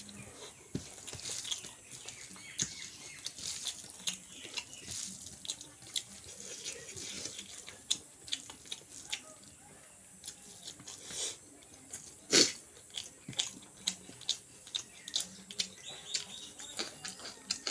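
Close-up eating sounds of chicken and rice being chewed: irregular wet mouth clicks and smacks, with one sharper, louder click about two-thirds of the way through.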